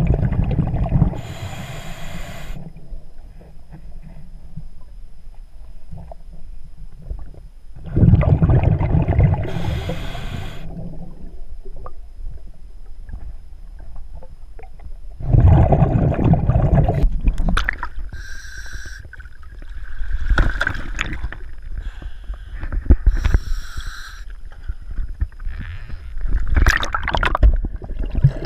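Scuba diver breathing through a regulator, heard underwater: a rumbling rush of exhaled bubbles, then a high hiss as air is drawn through the demand valve. The breaths come about every seven or eight seconds at first, then quicker and more broken in the second half.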